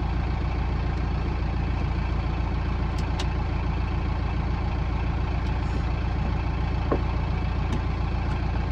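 Kubota M6040 tractor's diesel engine idling steadily, heard from inside the cab, with a few light clicks and taps from handling the ceiling speaker and screwdriver.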